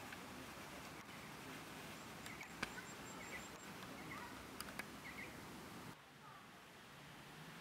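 Faint outdoor ambience with a few soft bird chirps in the middle and three sharp clicks, the loudest sounds; the background drops quieter about six seconds in.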